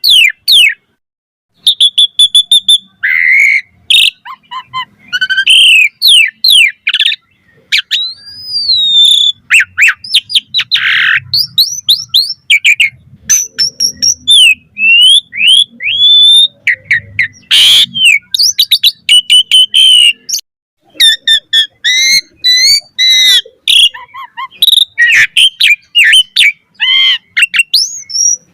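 Asian pied starling (jalak suren) singing a loud, varied song: quick whistles, rising and falling slurs, and harsh rasping notes, delivered in bursts with short pauses between phrases.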